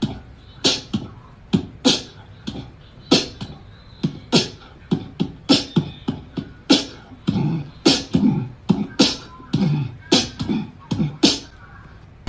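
Rhythmic, beatbox-like percussive clicks and pops, with some low vocal sounds in the second half.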